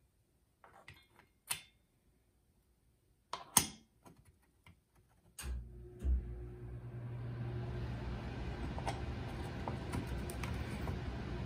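Steel coil springs clicking against the metal housing of a dual-clutch transmission torque damper as they are handled and seated, a few sharp clicks in the first half with the loudest about three and a half seconds in. About halfway through, a steady low hum with a hiss starts and keeps going.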